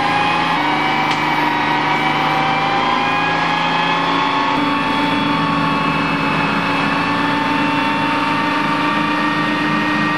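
Tree spade truck's engine running steadily under hydraulic load as the spade lowers the tree into its planting hole. Its pitch creeps slowly upward.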